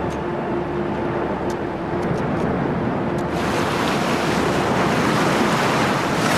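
Ocean surf: waves breaking in a steady rushing wash that grows louder and fuller about three seconds in.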